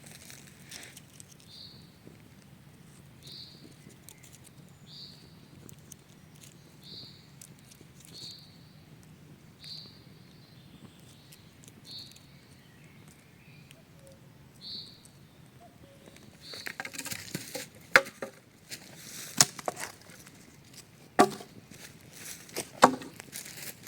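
A forest bird repeating a short, high call note about every second and a half, about ten times. From about two-thirds of the way through, close rustling with several sharp clicks and knocks takes over.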